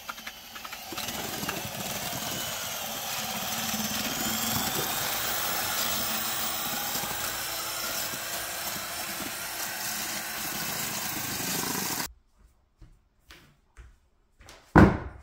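Cordless drill with a paddle mixer stirring tile mortar in a plastic bucket, its motor whine wavering a little in pitch. It stops abruptly about twelve seconds in. A few light knocks follow, then a loud thump near the end.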